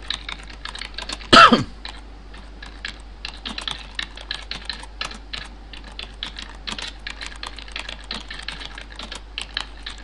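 Recorded computer-keyboard typing sound effect playing back: a fast, irregular run of key clicks, several a second. About one and a half seconds in, a brief loud voice-like noise stands out over the clicking.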